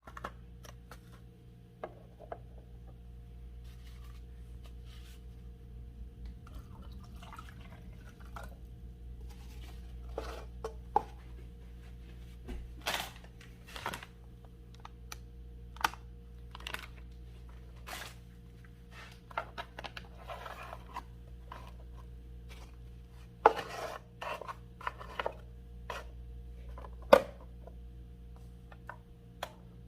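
Clicks, taps and rubbing of hands working a hotel-room coffee machine and handling cups, over a steady low hum. A few sharp clicks stand out, the loudest near the end.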